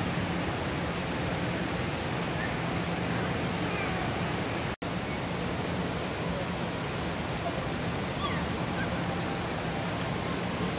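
Steady rushing of a fountain or artificial waterfall, an even hiss of water with faint distant voices over it. The sound drops out for an instant about five seconds in.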